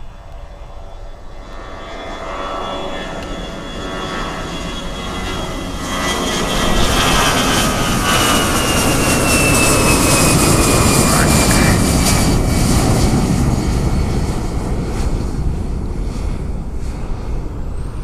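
Airbus A320 jet airliner taking off and passing by. The engine noise builds for about six seconds, holds at its loudest, then slowly fades, with a high whine that falls in pitch as the aircraft goes past.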